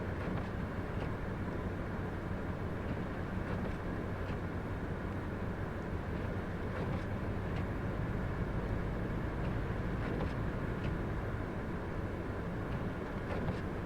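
Wind buffeting the microphone in a snowstorm: a steady low rumble, with a few faint ticks scattered through it.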